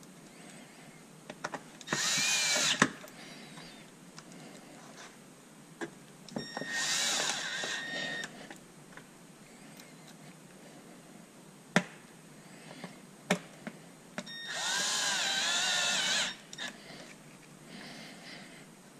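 Cordless drill-driver running screws into an aluminium cover: three short whirring runs of one to two seconds each, the pitch wavering as each screw seats, with a few sharp clicks of bits and screws between the runs.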